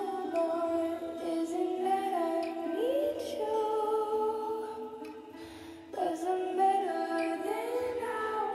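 Background music with a steady melody; it drops away briefly about five seconds in and comes back a second later.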